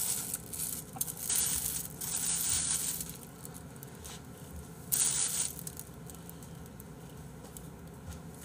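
Plastic bag crinkling and rustling as it is handled, in two bursts: a longer one from about one to three seconds in and a shorter one about five seconds in.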